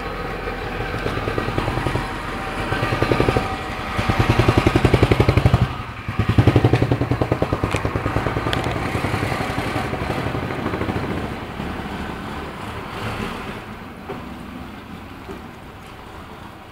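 A motor vehicle's engine running close by with a fast, even pulse. It grows louder to a peak about four to seven seconds in, with a brief dip near six seconds, then slowly fades away.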